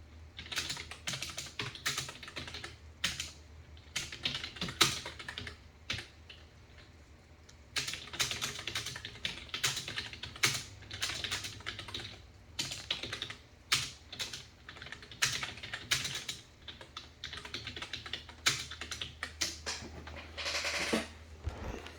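Typing on a computer keyboard: runs of quick key clicks in bursts with short pauses between them, and a brief rustle near the end, over a low steady hum.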